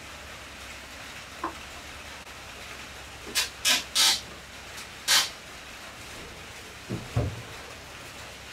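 Handling noise from a small old television set being lifted onto a wall shelf: four short scraping rushes between about three and five seconds in, then two low thumps near seven seconds as the set is put in place.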